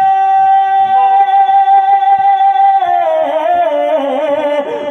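A man's voice singing a naat through a microphone and PA. He holds one long steady note, then about three seconds in breaks into a wavering, ornamented melody.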